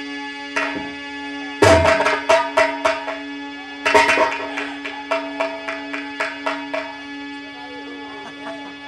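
Indian folk music interlude: a steady held drone with runs of quick drum strokes, one starting about one and a half seconds in and another about four seconds in.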